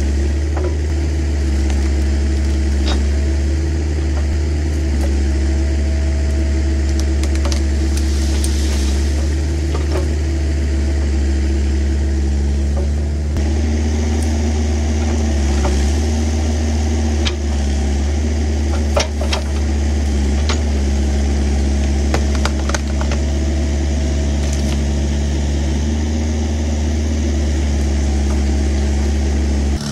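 Kubota excavator's diesel engine running steadily under work, a strong low drone, with scattered sharp cracks and snaps through the middle of the stretch.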